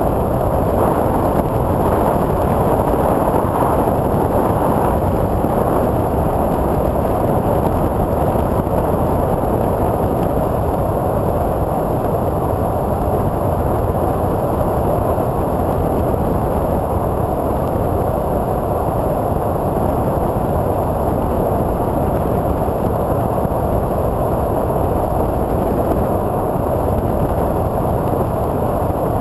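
Twin electric motors and 8x6 propellers of a TwinStar II RC plane in flight, heard from an onboard GoPro as a steady rush of wind and prop noise, with a faint high whine.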